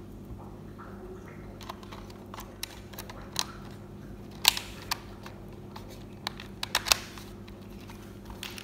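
Sony HDR-CX405 camcorder being handled as a battery is slid into its compartment and the plastic battery cover is snapped shut: a scatter of sharp plastic clicks and taps, loudest about halfway through, over a faint steady hum.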